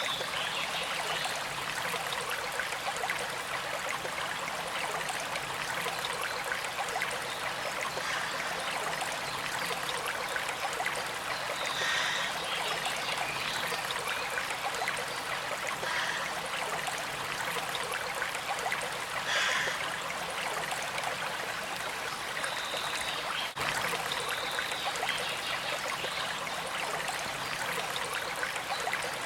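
Stream water flowing steadily in a continuous trickling rush. A few brief high-pitched sounds rise over it now and then.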